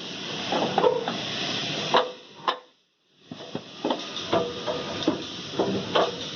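Scattered metallic clinks and knocks of hand tools working on an engine, over a steady hiss, with a brief total dropout about three seconds in.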